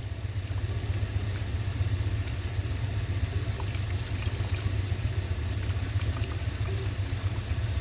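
Engine oil pouring from the drain hole into an oil drain dolly, let out slowly, over a steady low roar from evaporative coolers running full blast.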